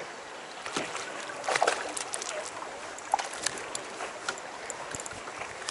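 A hooked largemouth bass splashing and thrashing at the surface beside a bass boat, over water lapping at the hull. Scattered sharp splashes and clicks, loudest about a second and a half in.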